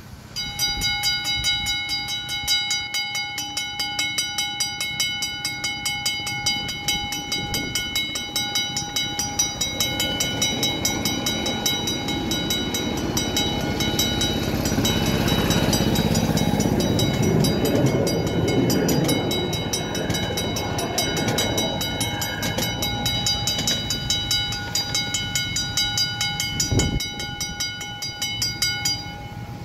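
Railway level-crossing warning bell ringing in a fast, even rhythm, starting and stopping abruptly, while a rail vehicle rumbles past, loudest about halfway through.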